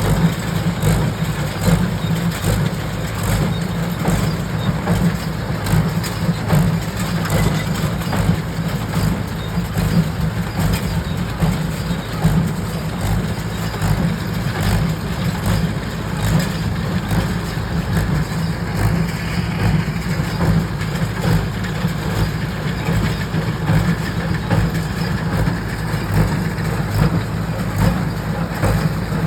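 Tractor and square baler working, baling wheat straw: a loud, steady engine drone that holds without a break.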